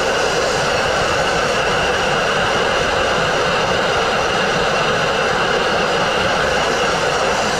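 Dustless blasting nozzle firing a steady, loud jet of compressed air, water and fine crushed-glass abrasive against a brick wall, blasting off cement-backed masonry paint.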